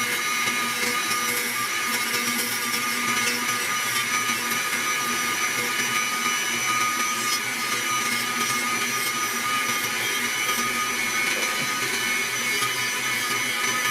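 A small power tool motor running steadily under load, a whine of several steady tones over a hiss that does not let up.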